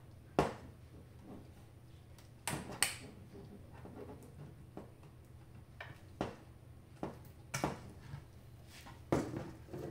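Short, sharp clicks and knocks of plastic parts and cable connectors being handled and unplugged inside an opened Terumo TSCD II sterile tube welder, about half a dozen spread apart, over a faint low hum.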